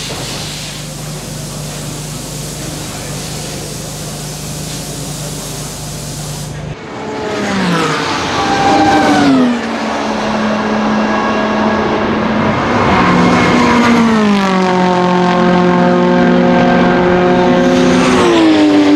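A steady hum and hiss, cut off about seven seconds in. Then a Toyota GR86 Cup race car's naturally aspirated 2.4-litre boxer-four runs loud at high revs, its pitch climbing, then falling smoothly three times and holding steady in between.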